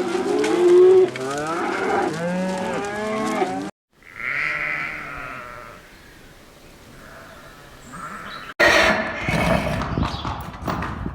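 A flock of bleating animals, many overlapping calls, for nearly four seconds, cut off abruptly. Fainter animal calls follow, then after another sudden cut a louder, noisier stretch with many short knocks.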